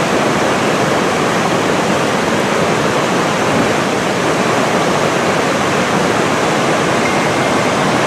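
Waterfall rushing loudly and steadily, heard from close by.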